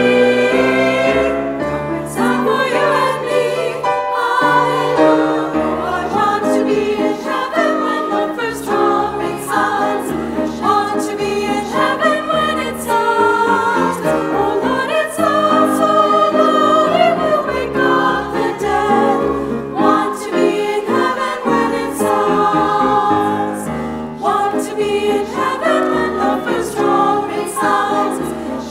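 Women's chorus singing a choral arrangement in several parts.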